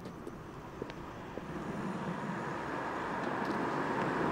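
A car approaching along a street, its engine and tyre noise building steadily louder as it comes closer.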